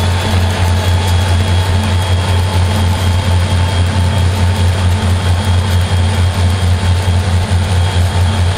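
EMD SD40-2 diesel locomotive's turbocharged two-stroke V16 engine working steadily as it cruises, heard alongside with a strong low drone and a faint high whine, mixed with wind and road noise from the pacing vehicle.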